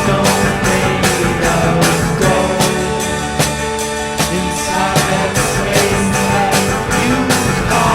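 Rock music with drums, guitar and singing, playing loudly with a steady beat.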